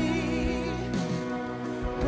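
Live worship band playing: a vocalist singing a wavering line over drums, bass and electric guitars.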